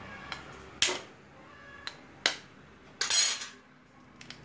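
A hen's egg knocked sharply against the rim of a glass bowl, twice, then a short crunching crackle as the shell breaks open.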